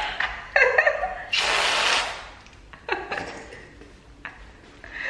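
Women laughing, with short bits of voice. About a second and a half in comes a loud breathy hiss lasting under a second.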